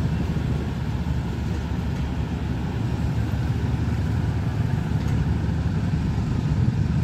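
Low, steady rumble of a diesel locomotive hauling a passenger train as it approaches slowly.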